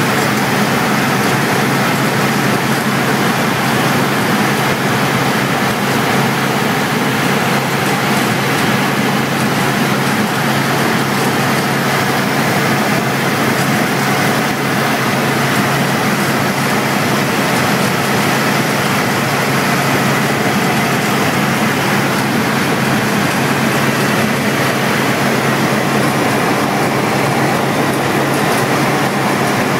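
Helicopter cabin noise in cruise flight: the engine and rotors make a steady, loud drone with a constant low hum and a rushing hiss, unchanging throughout.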